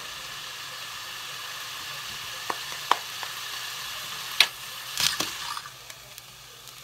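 Chicken frying in oil in a skillet: a steady sizzle with a few sharp clicks about halfway through, the loudest about four and a half seconds in. The sizzle drops lower near the end.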